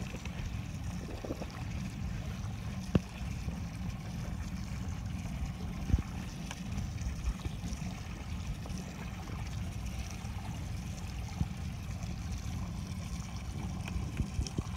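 Steady low rumbling noise of a small boat on open water, with two sharp knocks a few seconds apart.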